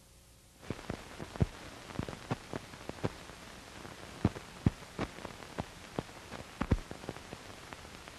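Hiss with irregular clicks and pops, a few a second: the surface noise of an old film's worn soundtrack, starting about half a second in.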